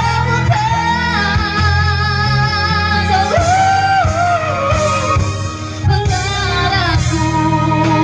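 A woman singing a slow love ballad into a corded microphone over a karaoke backing track, holding long notes with a wavering vibrato and stepping down in pitch about halfway through.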